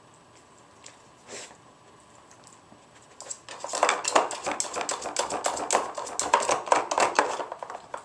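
A dog working at a hard plastic treat-puzzle board, the plastic clattering and scraping in a fast, irregular run of clicks that starts about three seconds in and lasts about four seconds.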